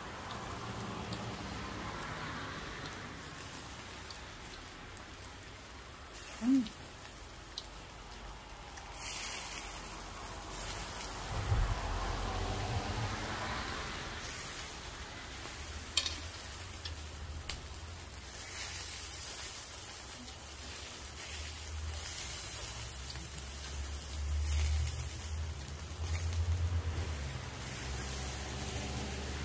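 Steady hiss of rain mixed with beef skewers sizzling on a tabletop grill, with low rumbles now and then. A short pitched sound about six seconds in and a sharp click about sixteen seconds in.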